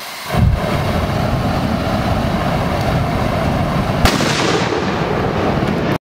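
Backpack flamethrower firing: a sudden heavy onset about a third of a second in, then a steady rushing noise of the burning fuel jet, with one sharp crack about four seconds in. The sound cuts off abruptly at the end.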